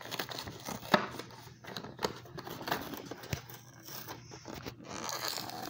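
Cardboard and clear plastic toy packaging being worked open by hand: crinkling and scattered clicks, with one sharp click about a second in.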